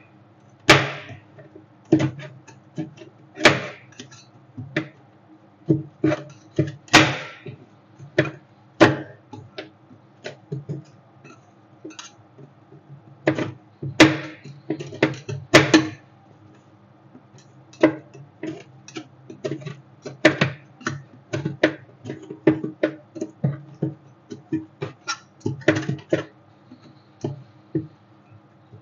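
Metal spatulas chopping and scraping on the steel cold plate of a rolled ice cream stand: irregular sharp clinks and taps in quick clusters, with short scrapes, over a steady low hum.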